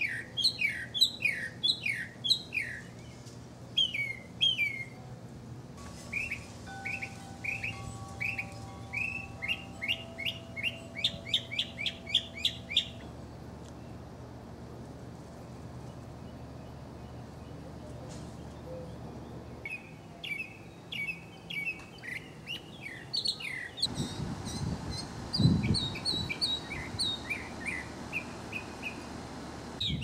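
Northern mockingbird singing: runs of quick chirping notes, each phrase repeated several times, broken by a pause of several seconds midway. A low rumble sounds about five seconds before the end.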